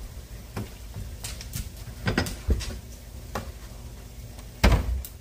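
Kitchen handling noise: a run of light knocks and clicks of containers being picked up and set down, a couple of louder clunks a little over two seconds in, and a heavy thump near the end, like a cupboard or fridge door shutting.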